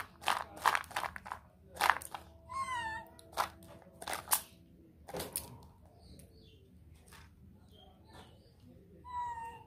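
Sunflower seeds rattling in a plastic bowl and pattering onto the ground as they are shaken out, a quick run of sharp clicks over the first five seconds. A baby monkey gives a short, high, wavering squeal, once a few seconds in and again near the end.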